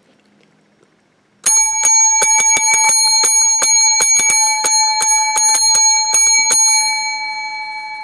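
Chrome desk bell (call bell) struck rapidly by hand, about twenty dings at roughly four a second, starting about a second and a half in. After the last strike its ring fades away.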